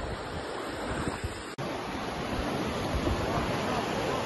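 Turbulent water churning and rushing out of the California Aqueduct gates, a steady rush with wind on the microphone. A brief dropout about one and a half seconds in.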